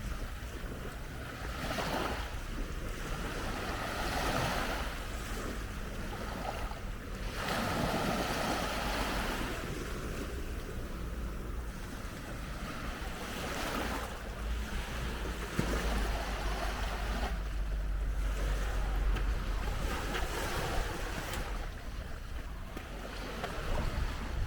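Small waves washing onto a sandy beach, swelling and falling back every couple of seconds, with wind rumbling on the microphone.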